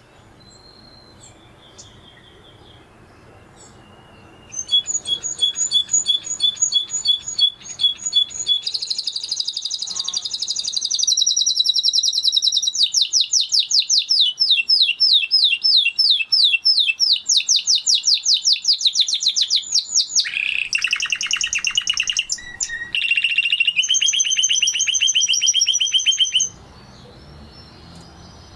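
Spanish Timbrado canary singing a long song. It starts about four seconds in as a run of rapid repeated notes and trills that changes phrase every few seconds, and stops abruptly near the end.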